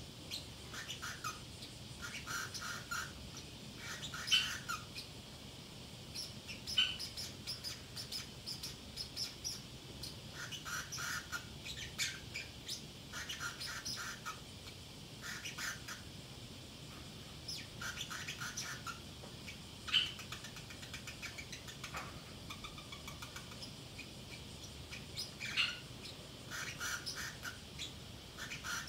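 Pacific parrotlet chattering to itself: short runs of chirps and twitters every second or two, with a few louder, sharper squawks standing out.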